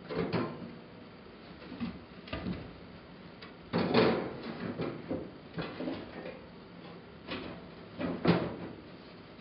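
Refractory panel scraping and knocking against the metal firebox of a wood-burning fireplace insert as it is worked into place: a string of short knocks and scrapes, the loudest about four seconds in.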